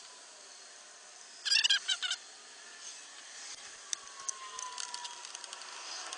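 A quick rattle of metallic clinks about a second and a half in, then faint scattered ticks, from hand tools and bolts as a short-throw shifter is bolted down.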